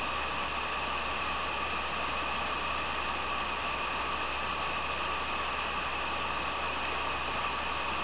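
Small waterfall rushing steadily, an even, unbroken noise of falling water.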